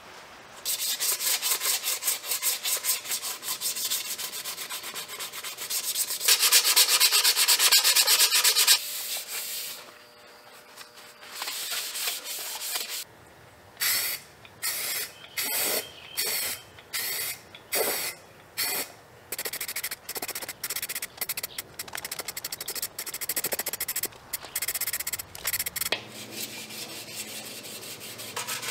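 Hand sanding and scraping on a Harley-Davidson Sportster rear fender: quick rubbing strokes, a loud continuous stretch of sanding around six to nine seconds in, then a run of short separate bursts about a second apart. Slower rubbing strokes with a sanding block follow near the end.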